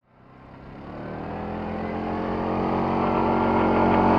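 CFMoto 500 ATV's single-cylinder engine running at a steady pace, growing steadily louder as the quad approaches.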